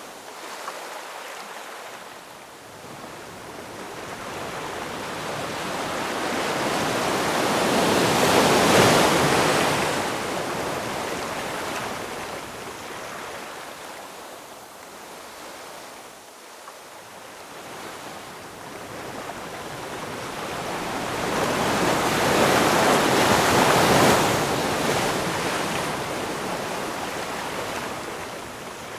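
Ocean waves breaking and washing up the shore: two slow swells of surf, the first peaking about nine seconds in and the second a little after twenty seconds, each easing back to a softer hiss between.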